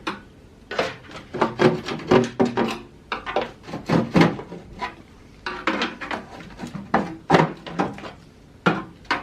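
Irregular clattering, knocking and scraping of tools and metal parts being handled while an old welder's high-frequency unit is taken apart, with some knocks ringing briefly.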